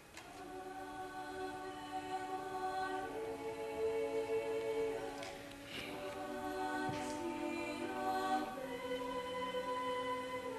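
Mixed youth choir singing a cappella in held chords that shift every few seconds, with a few soft sibilant consonants.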